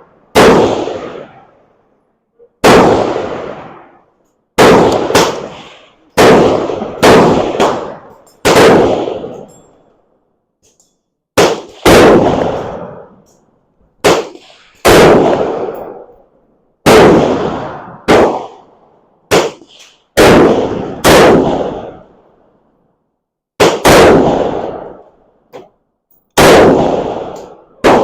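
Rifle shots on an outdoor range: about twenty sharp reports at irregular spacing, some in quick pairs, each with a ringing decay. They include .223 rounds from a Ruger Mini-14 being fired at a target stand to check its zero.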